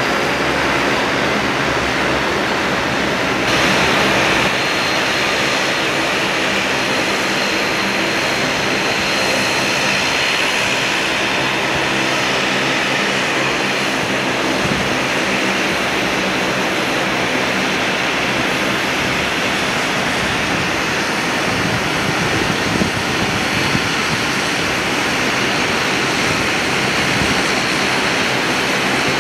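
A De Havilland Canada Dash 8-400's twin Pratt & Whitney PW150A turboprops running at taxi power: a steady high whine over a dense, even propeller drone.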